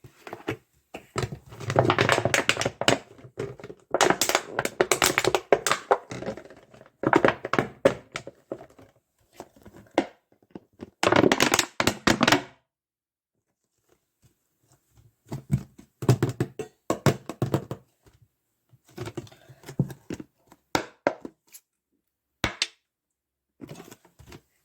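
A plastic bottle crinkling and thunking as it is squeezed and handled, in dense bursts of crackling a second or two long. About halfway through there is a pause of a few seconds, followed by sparser, quieter bursts and single clicks.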